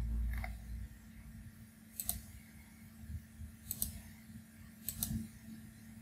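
Computer mouse clicking: a few short, sharp clicks, two of them in quick pairs, over a faint steady low hum.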